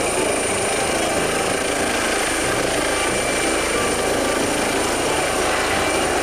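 Air ambulance helicopter lifting off and climbing: steady rotor and engine noise with a thin, steady high whine over it.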